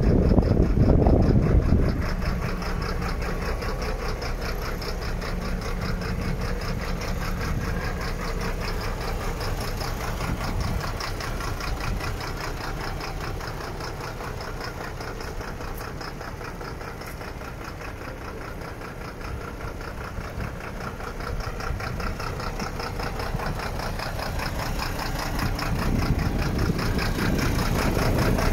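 A 1996 MAN truck's diesel engine idling steadily. It is louder for the first two seconds and again near the end.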